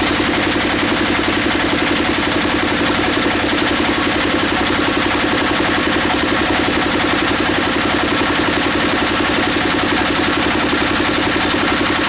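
Swan S-1130 single-cylinder diesel engine running steadily, with a fast, even chugging beat.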